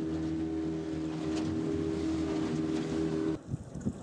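Boat's outboard motor running steadily at cruising speed while the boat is underway, a constant multi-tone hum. It cuts off abruptly about three and a half seconds in, leaving quieter wind and water noise.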